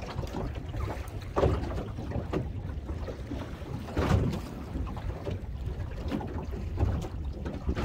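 Wind rumbling on the microphone over water moving around a boat, broken by a few sharp knocks, the loudest about one and a half and four seconds in.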